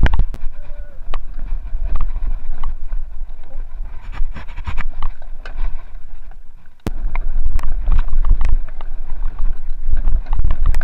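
Mountain bike descending a rough dirt trail: wind buffets the camera microphone in a constant low rumble, while the bike rattles and clacks over roots and rocks in a run of sharp knocks. The rumble drops briefly about six seconds in, and a sharp knock about seven seconds in brings it back.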